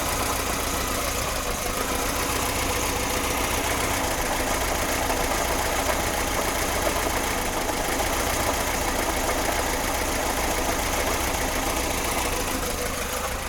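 VAZ-2106 four-cylinder engine, with a freshly replaced and tensioned timing chain, running steadily with a knock. The owner finds the knock much like worn crankshaft bearing shells, but it does not change when the spark plug leads are pulled off.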